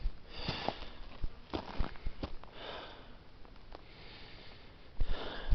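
A hiker breathing in and out in slow, breathy swells about every two seconds close to the microphone while walking uphill at high altitude, with short scuffs of footsteps on the dirt road between breaths.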